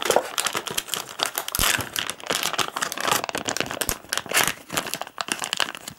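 Plastic lure packaging crinkling and rustling as it is handled, a dense run of small crackles and clicks.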